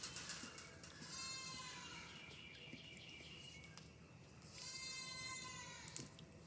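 Goat bleating twice, faintly: two drawn-out calls of about a second each, the pitch dropping at the end of each.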